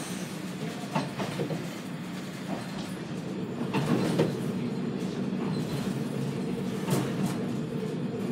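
Kominato Railway KiHa 200 diesel railcar heard from inside the cab: a steady low engine and running drone, with a few sharp clacks and knocks from the wheels over the track.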